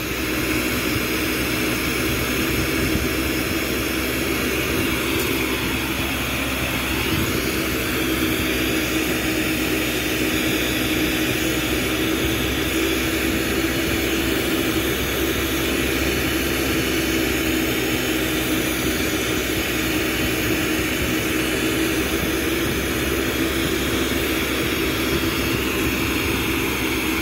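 Glassblowing bench torch burning steadily: a constant rushing hiss with a steady low hum beneath it.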